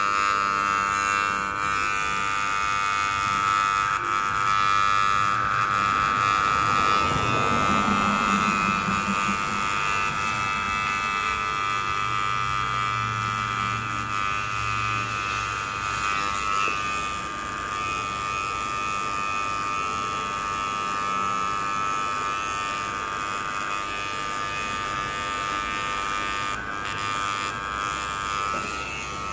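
Corded electric hair clippers buzzing steadily as the blade cuts the hair of the cheek and sideburn.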